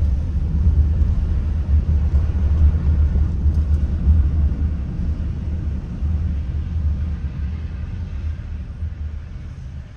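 Low, steady rumble of a car moving through city streets, heard from inside the cabin: road and engine noise, fading over the last few seconds.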